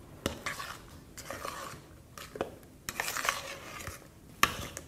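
A spoon stirring thick, creamy fruit quark in a plastic mixing bowl: soft squelching and scraping, with a few sharp clicks of the spoon against the bowl.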